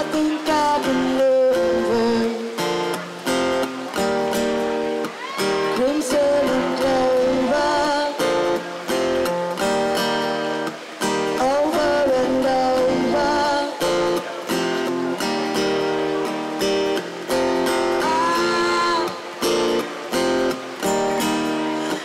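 A song with strummed acoustic guitar and a woman singing, the voice wavering in pitch on held notes.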